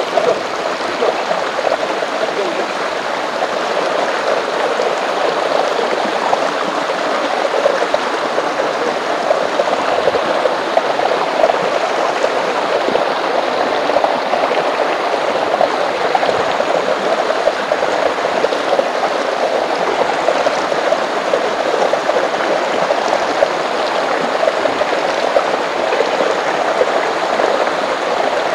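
Shallow rocky forest stream flowing over stones: a steady, even rush of water.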